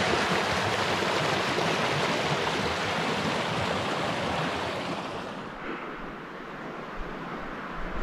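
Fast mountain creek rushing over rocks, a steady full rush of water that fades down about five to six seconds in.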